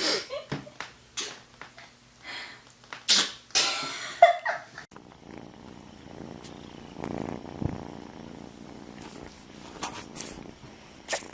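A pet sneezing several times in quick, sharp bursts. After about five seconds they give way to a quieter, steady low rumble.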